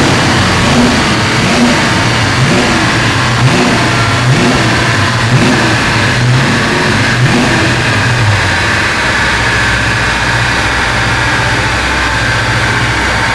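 Plymouth Barracuda V8 engine revved in short blips about once a second, then settling into a steady idle about nine seconds in.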